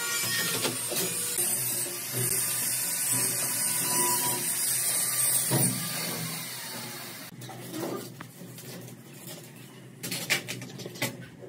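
Cement powder pouring from a paper sack onto a bed of sand, a steady hiss that fades about seven seconds in. After that come quieter rustling of the paper sack and a few sharp clicks near the end.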